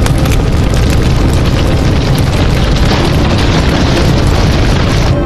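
A loud, rough, rumbling boom-like sound effect, a dense roar of noise like an explosion that cuts in and cuts out abruptly. It is the edited-in sound of a glowing magic-aura effect.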